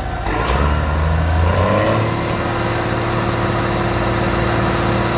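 Big farm tractor diesel engines, a John Deere and a Steyr 6225, revving up: a brief sharp sound about half a second in, then the engine note rises over a second or so and holds steady at high revs, as the tractors pull against each other in a tug-of-war.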